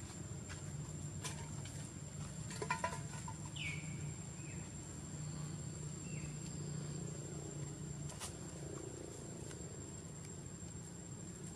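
Outdoor ambience: a steady low hum and a steady high whine, with a few clicks and crackles, most of them about three seconds in. A single short falling squeak comes just after the crackles.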